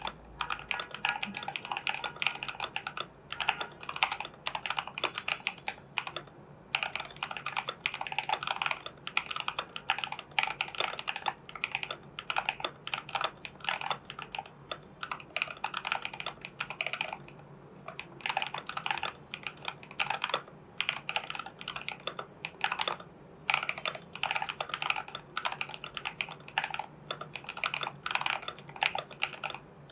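Continuous typing on a Glorious GMMK Pro mechanical keyboard with lubed and filmed linear-style switches and PBT keycaps: dense runs of keystrokes, broken by short pauses about six seconds in, near the middle and about two-thirds of the way through.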